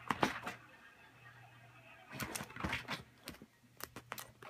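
Wooden clothespins clicking and knocking against each other and the bag rim as a cat bats at them with its paw: quick clusters of clicks right at the start, again around two seconds in, and near the end.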